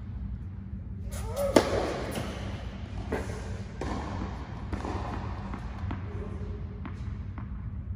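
Tennis ball knocking on a hard indoor court and off rackets, each knock ringing in the large hall, with one louder hit about a second and a half in. A steady low hum runs underneath.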